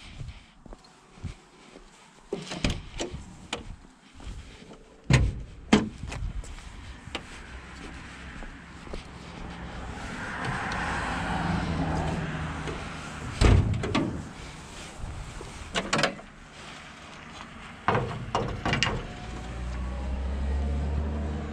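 Door of a Lada VAZ-2108 with a broken window being worked by hand: a series of sharp knocks and thuds, with a longer stretch of rubbing, scraping noise around the middle.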